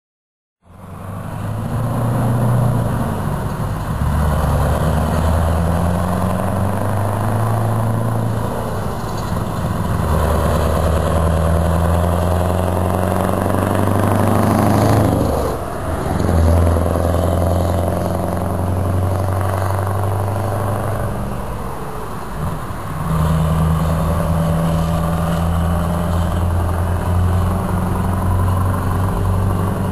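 Scania 164L 480's V8 diesel engine pulling away and accelerating, shifting up through its gears: the engine note climbs, drops back at each shift and climbs again. The truck passes close by about halfway through.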